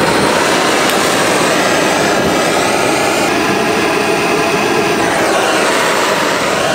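Handheld gas torch burning steadily with a rushing hiss, its blue flame heating a seized brake caliper bleeder valve to free it.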